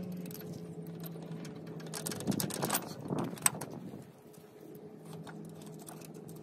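A few sharp metallic clicks and clinks from hand work on the air-spring bracket bolts, clustered between two and three and a half seconds in, over a low steady hum.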